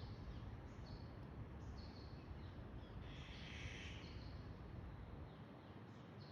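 Faint bird chirps: short high notes repeated at irregular intervals. About three seconds in there is a harsher hiss lasting roughly a second, all over a steady low background rumble.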